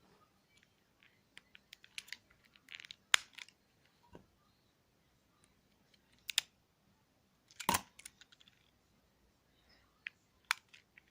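Mobile phone keypad clicking: scattered, irregular button presses and handling taps, some in quick runs, with the loudest clicks about three seconds in and near the eight-second mark.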